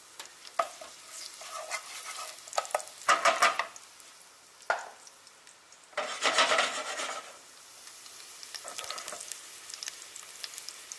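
Sliced garlic sizzling in hot olive oil in a nonstick pan: a faint crackling frying hiss as the garlic starts to infuse the oil. About three and six seconds in there are two louder scraping bursts as the pan is stirred and shifted on the stove.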